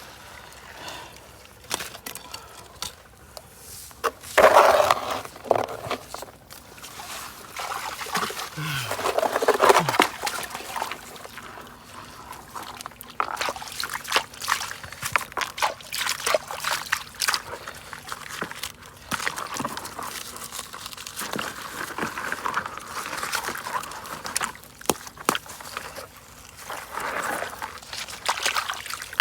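Water sloshing and trickling with scraping and clicking of wet sand and gravel, as when river sand is worked in water for gold. Louder cries break in about four seconds and nine seconds in, the second falling in pitch.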